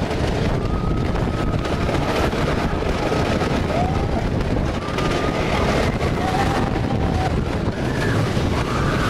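Wind buffeting the microphone over the steady rumble of a wooden roller coaster train running along its track, with faint wavering high tones over the top.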